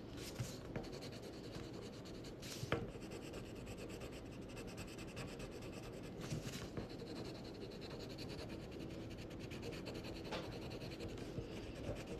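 Pencil lead scratching on paper, shading in a small dark area with short scribbling strokes, with one sharper tap about three seconds in.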